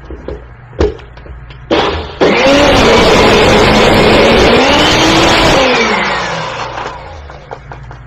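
A knock, then about two seconds in a countertop blender starts up, crushing ice with cold brew and cream. It runs loud and steady for about three seconds, then winds down and stops about seven seconds in.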